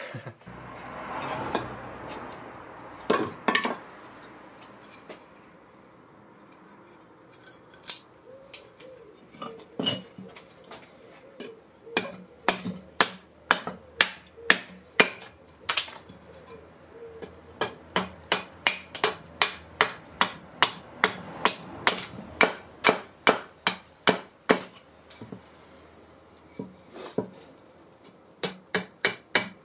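Carving axe hewing a wooden spoon blank held upright on a chopping block: sharp knocks in runs of about two a second, scattered at first, with short pauses between runs.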